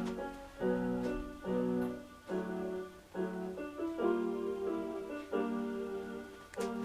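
Background music on solo piano: a slow melody with chords, notes struck about once a second and left to ring and fade.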